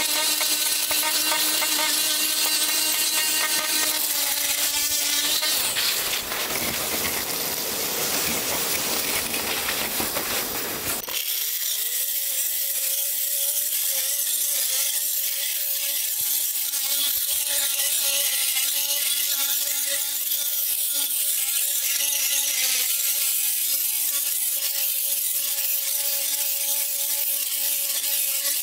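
Ryobi oscillating multi-tool running, its blade scraping old concrete off stone flagstones and out of the joints: a steady buzzing hum with a gritty scrape over it. About eleven seconds in, a deep rumble under it drops away abruptly and the tool's hum carries on alone.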